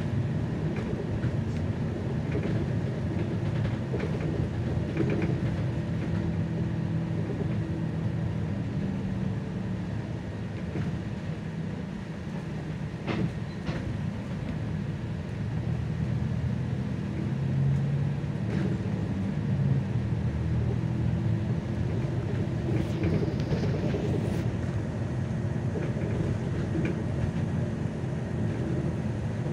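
Solaris Urbino 18 III articulated city bus on the move, heard from inside the cabin: a steady low engine and road rumble with a shifting engine note and a few short rattles and clicks. The rumble eases a little around the middle and builds again.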